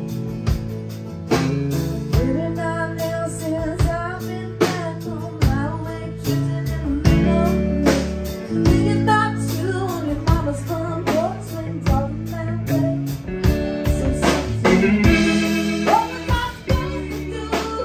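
Live country band playing a song: a woman singing lead over acoustic guitar, electric bass and drums.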